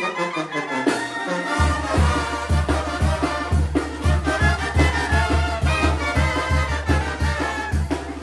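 Mexican brass band playing a lively dance tune, trumpets and trombones carrying the melody over sousaphone and bass drum. The low bass-and-drum beat comes in about a second and a half in and keeps a steady, quick pulse.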